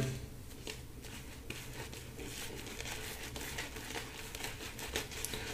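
Boar-bristle shaving brush scrubbing shave-soap lather on a stubbled face: a faint, irregular wet crackling of bristles and bubbles. The lather is still early and not yet ready, before more water is worked in.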